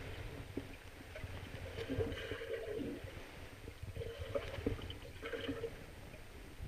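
Muffled underwater sound from a camera held below a pond's surface: a steady low rumble of moving water with faint gurgling.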